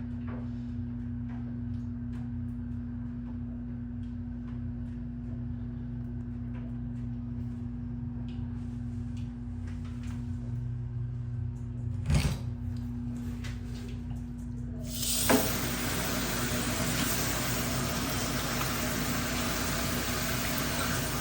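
A steady low hum, a single knock about 12 seconds in, then water starts spraying from the JOMST handheld shower head about 15 seconds in and keeps running with a steady hiss.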